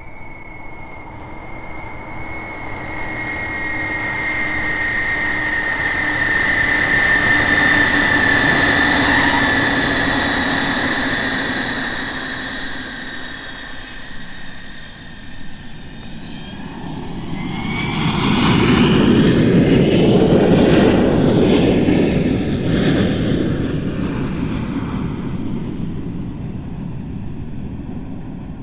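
Boeing 747 jet engines running: a high whine, falling slightly in pitch, swells and fades over the first half. A second, deeper rush of similar loudness builds up about two-thirds of the way in and dies away.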